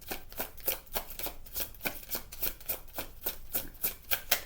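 A deck of oracle cards being shuffled by hand, giving a quick run of crisp card flicks, about five or six a second, that stops just before the end.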